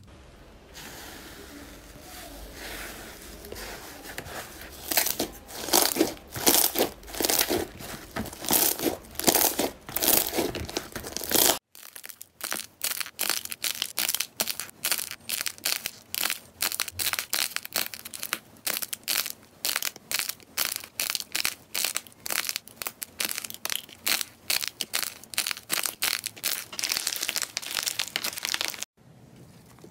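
Hands squishing and pressing glossy slime, with irregular wet crackling pops that grow denser. After a sudden cut partway through, this gives way to dense, fast, crisp crackling as hands tear apart and squeeze balls of crumbly marbled clay.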